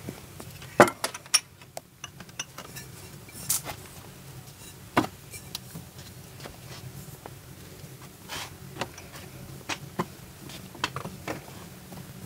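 Irregular light clicks and knocks over a low steady hum.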